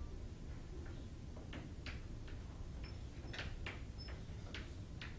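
Irregular short ticks and taps of a pen or chalk drawing on a board, about two a second, over a steady low room hum.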